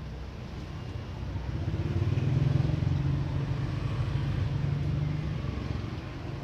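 A motor vehicle's engine passing by, growing louder for a couple of seconds and then fading.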